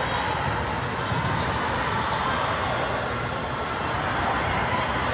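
The steady din of a big indoor volleyball tournament hall: volleyballs bouncing and being struck on many courts, with the dull knocks scattered through a dense wash of voices.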